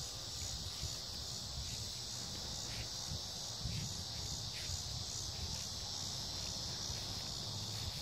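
Steady high-pitched chorus of insects, such as crickets, with a low uneven rumble underneath.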